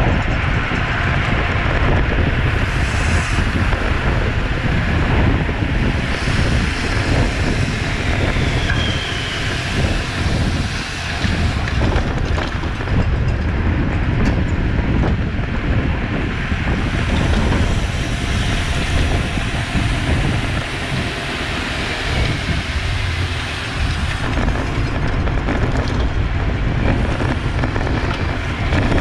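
Continuous wind rush and rumble on the microphone of a camera riding on a road bike at racing speed, with road and tyre noise underneath.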